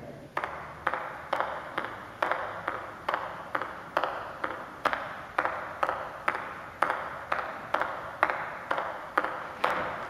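A ping pong ball bounced over and over on a table-tennis paddle, the paddle flipped between hits. The result is a steady run of sharp clicks, about two a second, each followed by a short echo.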